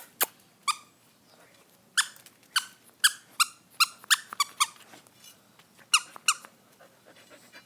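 A run of about a dozen short, high-pitched squeaks in irregular quick succession, each a brief chirp.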